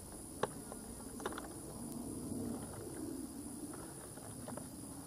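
Handling of a small cardboard gift box as it is held and turned over: a sharp click about half a second in, then a few lighter taps, over a low steady background murmur.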